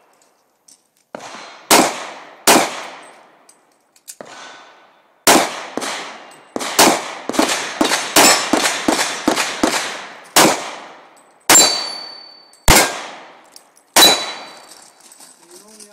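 Handgun shots fired in a string at steel targets, with the plates clanging when hit. The shots come singly at first, then in a quick run of about a dozen, then spaced roughly a second apart near the end.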